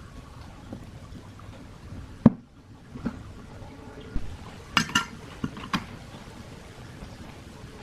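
Several sharp knocks and clinks of metal parts being handled, the loudest about two seconds in and a quick ringing cluster near five seconds, over a steady low background noise.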